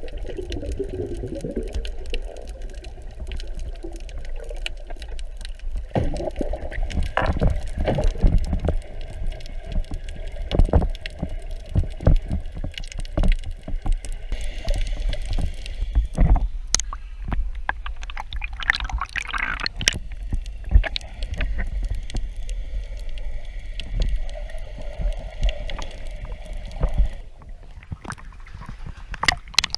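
Muffled underwater sound picked up by a camera in a waterproof housing while snorkelling: a low rumble of water with bubbling and many small clicks and knocks.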